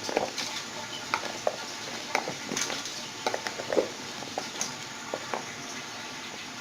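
Irregular clinks and knocks of a utensil against a cooking pot as ash gourd pieces are added to potatoes in water and stirred, over a steady hiss.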